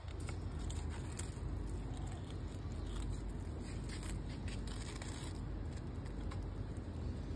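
Faint, scattered scratching and rustling as a kitten paws and shifts in dry soil and leaves, over a steady low rumble.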